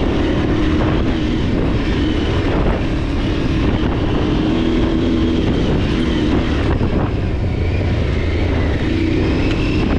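Aprilia adventure motorcycle's engine running steadily while riding a dirt track, its pitch wavering slightly with small throttle changes, over a constant low rumble.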